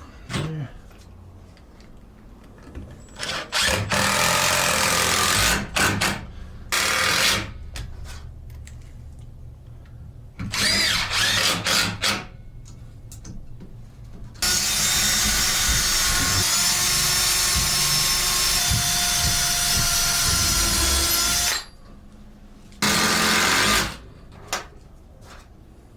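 Power drill driving screws into wood, running in several short bursts and one long steady run of about seven seconds.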